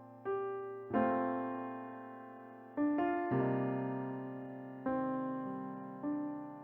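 Slow piano-style chords played on a keyboard, a new chord struck every second or two and each left to fade away.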